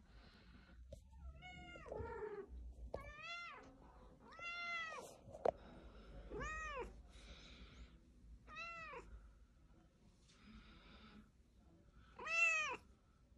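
Cat meowing repeatedly: about six separate meows, each rising then falling in pitch, a second or two apart, the loudest near the end.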